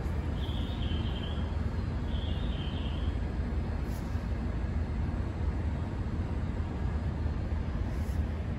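Steady low rumble of railway station ambience, with two short high chirps in the first three seconds and faint clicks about halfway and near the end.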